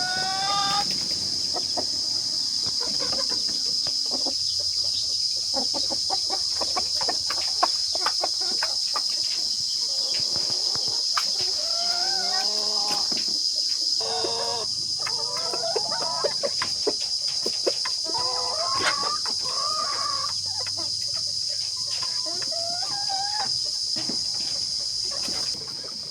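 A flock of Nepali local chickens clucking and calling, with the end of a rooster's crow about a second in. Many small clicks and a steady high-pitched drone run underneath.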